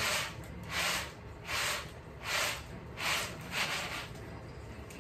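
Peanuts and loose shells rustling and swishing on a round woven winnowing tray as it is tossed in rhythm to winnow off the shells. There are six swishes, about one every three-quarters of a second, stopping about four seconds in.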